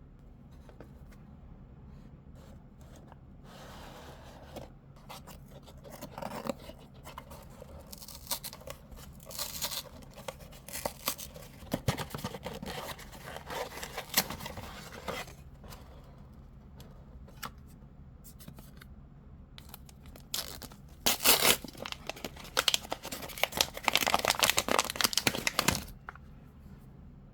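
Blind-box packaging being torn open and crinkled by hand, in irregular spurts of tearing and rustling, loudest and densest for about five seconds near the end.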